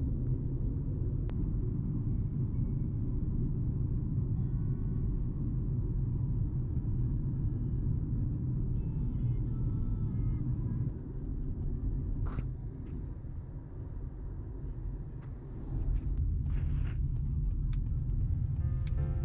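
A steady low rumble that turns quieter between about 11 and 16 seconds in, with faint music rising near the end.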